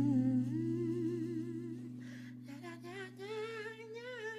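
The tail of a sung jingle: a voice hums a wavering melody that climbs in pitch over a held low chord, and the music fades down.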